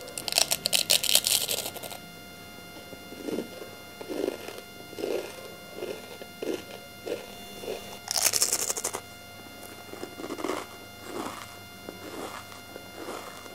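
Biting into crisp, flaky fried sanga bhaley (a layered Tibetan khapse pastry): a loud crackling crunch at the start and another about eight seconds in. Each is followed by steady, rhythmic chewing, a little more than one chew a second.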